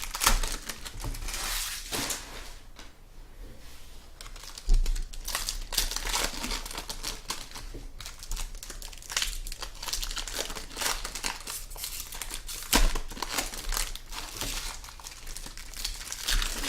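Crinkling and rustling of trading-card pack wrappers being torn open and cards being handled, with two sharper clicks, about five seconds in and near thirteen seconds.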